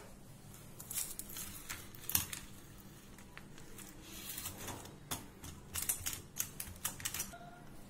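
Wooden spatula pressing and spreading sticky peanut-and-jaggery candy mixture into a greased steel tiffin box, giving irregular light taps and scrapes against the metal in scattered clusters.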